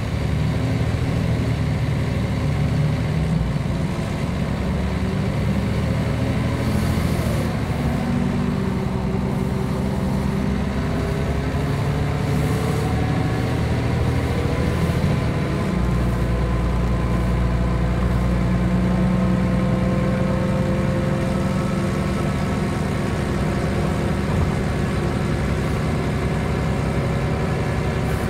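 Mercedes-Benz O 405 G articulated bus's diesel engine idling steadily while the bus stands still, with a few faint tones gliding slowly upward midway.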